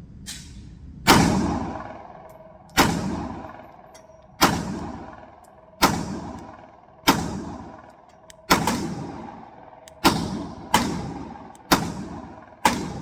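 Glock 43 single-stack 9mm pistol firing a slow string of shots, each crack trailing off in an echo, about a second and a half apart and quickening near the end. It is a function check after a new threaded barrel and upgrades.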